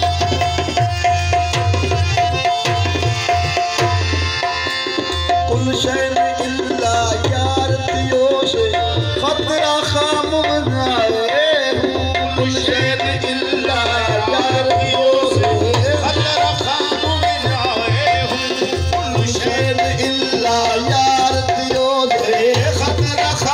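Live Sufi devotional music with tabla drums keeping a steady rhythm. A held melodic tone fills the first few seconds, and a wavering melody line joins about six seconds in.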